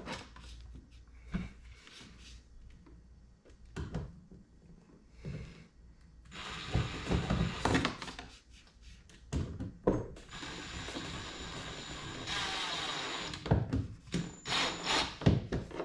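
Cordless drill driving self-tapping screws into a kayak's plastic deck at low power, in two runs of about three seconds each and a short burst near the end. Clicks and knocks of handling come between the runs.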